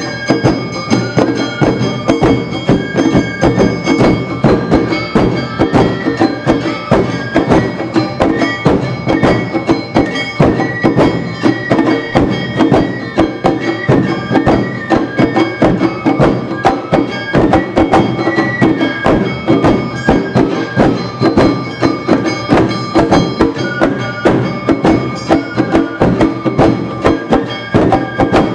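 Live Awa Odori festival band: taiko drums, a kane bell-gong, shamisen and bamboo flutes playing the quick two-beat dance rhythm. Held flute notes sit over a dense, even stream of drum and gong strikes.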